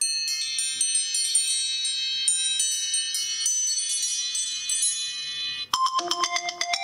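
Two stock iPhone ringtones play in turn. The first is a high chiming melody whose notes ring on and overlap, ending about five and a half seconds in. The next ringtone then starts right away with a quicker, lower run of repeating notes.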